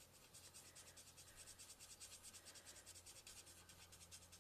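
Faint, quick scratching of a marker tip rubbed in small circles on cardstock, blending in light crumb cake colour.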